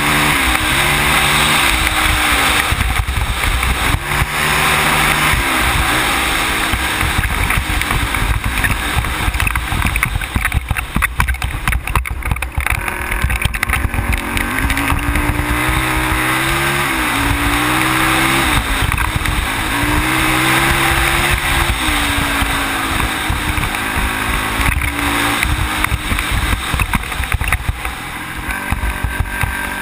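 Sport ATV engine running hard under a close-mounted camera, its pitch climbing and dropping several times as the rider accelerates and eases off. A steady rush of wind and road noise runs underneath.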